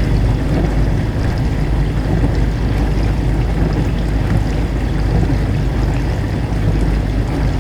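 Dishwasher running through its wash cycle: a steady low motor hum under continuous sloshing and spraying water.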